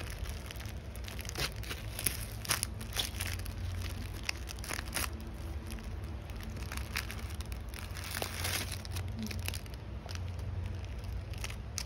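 Thin plastic film wrapper of a triangle onigiri crinkling and tearing as it is unwrapped by hand: the red tear strip pulled down the middle, then the film halves slid off the nori-wrapped rice, with irregular crackles and rustles throughout.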